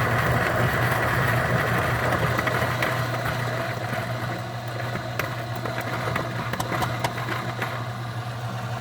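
Niche Zero conical burr coffee grinder running as it grinds a small dose of beans: a steady motor hum with the gritty noise of grinding, easing a little after about four seconds. Scattered sharp cracks follow as a last stray bean takes time to be caught and broken in the burrs.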